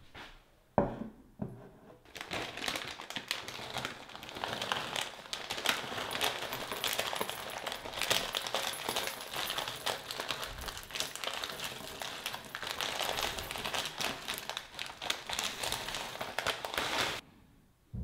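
A ceramic bowl set down on a wooden table with one sharp knock. Then granola-type cereal poured from a plastic bag into the bowl: a dense crackling rattle of clusters landing on the ceramic, mixed with the bag crinkling, for about fifteen seconds before it stops suddenly. A short knock comes at the very end.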